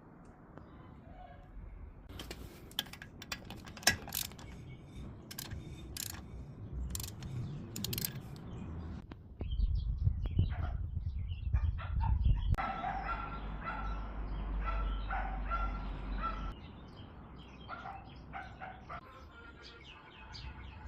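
Sharp clicks and knocks of the wheel being hung back on the hub and its lug bolts fitted. After that comes a low rumble with short repeated bird calls over it.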